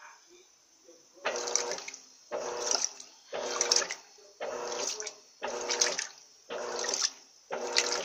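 Electrolux LT12B top-loading washing machine starting to agitate a water-filled load: after about a second of quiet, the agitator motor whirs and the water sloshes in even strokes about once a second.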